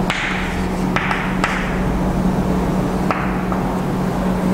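Chalk tapping and scratching on a blackboard as words are written: several short sharp taps, each trailing off in a brief scrape, over a steady electrical hum.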